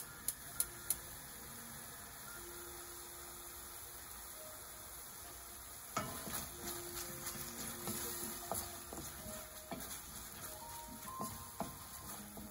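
Vegetables and sauce sizzling in a stainless steel frying pan, with a few light clicks in the first second. About halfway through, a wooden spatula knocks into the pan and starts stirring, scraping and tapping against the metal.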